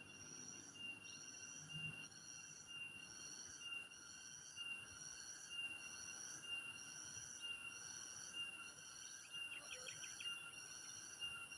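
Faint insect calls: a high, pulsing call repeating about once a second over a steady high-pitched hum, with a brief burst of short chirps near the end.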